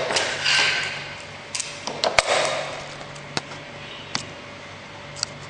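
Handling noise while unpacking equipment: rustling over the first second and again about two and a half seconds in, with about half a dozen sharp clicks and taps scattered through.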